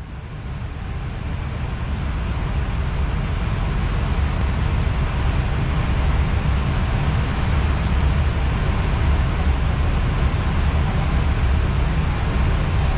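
Steady rushing airflow noise inside an Airbus A320 cockpit in flight, fading in over the first two seconds.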